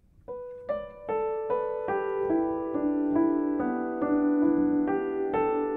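Solo piano playing a slow pentatonic melody in the middle register, starting about a third of a second in: single notes, each ringing on into the next, stepping downward and then leaping back up near the end.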